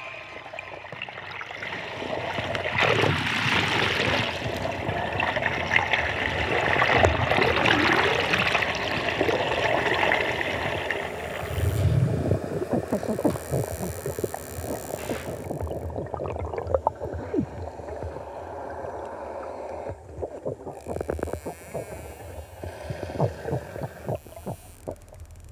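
Underwater hydrophone recording of dolphins: whistles gliding up and down over a hiss of water in the first half, then many sharp clicks through the second half.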